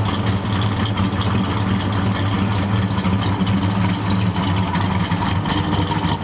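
A steady machine hum from a motor or engine running at an even speed, with a hiss above it.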